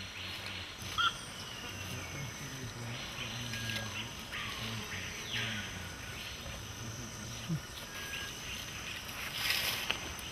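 Tropical forest insects: a steady high-pitched drone, with a louder buzz that switches on and off sharply around the middle, lasting about a second. A short rustle near the end.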